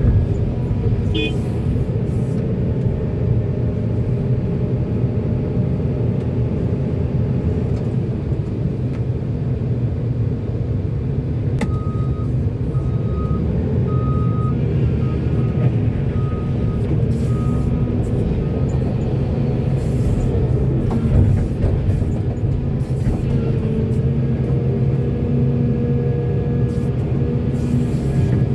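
Diesel engines of a heavy excavator and dump truck running steadily under load. For several seconds around the middle there is a string of short high beeps at one pitch, typical of a reversing alarm.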